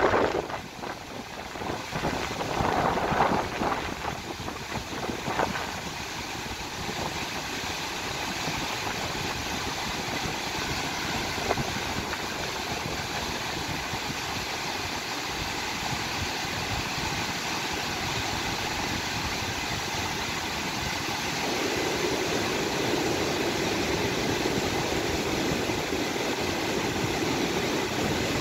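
Fast mountain river of white water rushing over boulders, a steady roar. Irregular gusts of wind hit the microphone in the first few seconds. The river grows a little fuller and louder about three-quarters of the way through.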